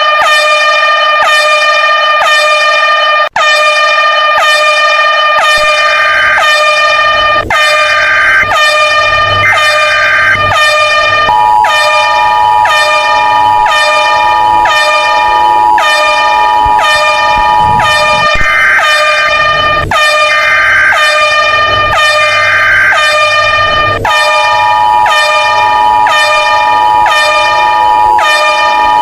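Fan-made emergency alert alarm: a loud, harsh horn-like tone pulsing in quick regular strokes, with a steady higher tone layered over it in the middle and again near the end. It cuts out for an instant a few seconds in.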